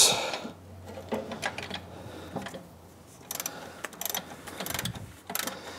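Hand socket ratchet clicking in short runs as a nut is run down onto the battery hold-down rod, with a clatter of the socket going onto the nut at the start.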